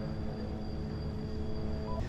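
Ominous background music: sustained droning tones held steadily over a low rumble.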